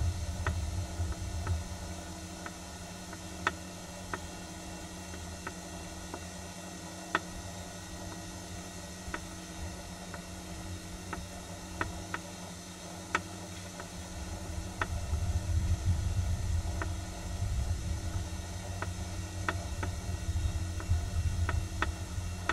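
Steady low outdoor rumble with a faint hum, swelling louder about two-thirds of the way through, and faint sharp ticks scattered about once a second.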